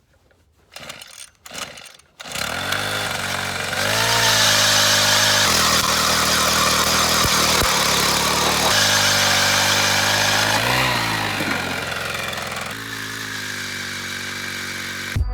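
Small gas engine starting up after a few light knocks, then running steadily and revving up about four seconds in. It dips briefly and picks up again around eleven seconds, then eases to a lower speed near thirteen seconds.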